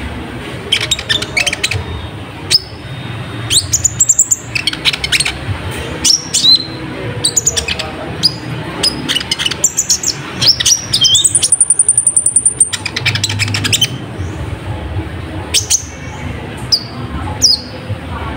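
Brown-throated sunbird (kolibri ninja, konin) singing loudly and energetically: a busy run of sharp high chirps and quick down-sweeping notes. About eleven seconds in comes a fast, even, very high trill lasting over a second.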